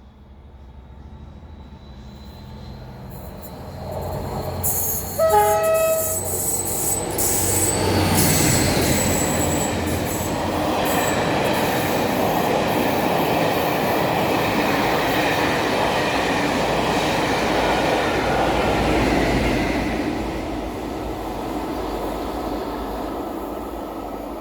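A train approaches with a high ringing from the rails, sounds a short horn blast about five seconds in, then passes at speed with a loud steady rumble and clatter of wheels that eases off near the end.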